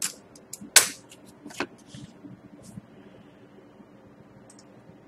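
Handling of sealed boxes of hockey cards: three sharp clicks or knocks in the first two seconds, a few light rustles and ticks, then only quiet room tone.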